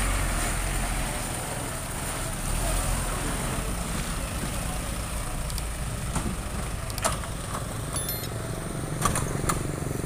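Diesel trucks rolling slowly past on a rough road, their engines rumbling steadily, with a few short sharp knocks about two-thirds of the way in and again near the end.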